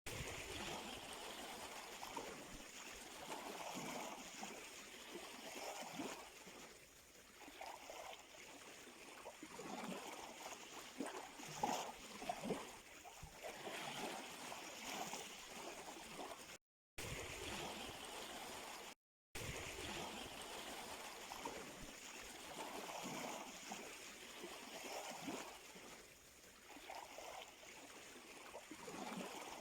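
Sea waves washing and lapping at the shore, with gurgling splashes, the wash swelling and easing every few seconds. The sound cuts out to silence twice, briefly, a little past the middle.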